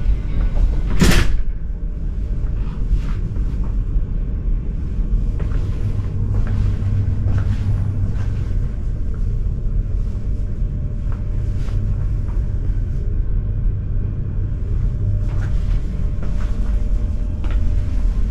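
Steady low rumble of a large passenger ferry's machinery heard inside a cabin. About a second in there is one sharp knock, like a cabin door or cupboard shutting, and light knocks and handling clicks follow now and then.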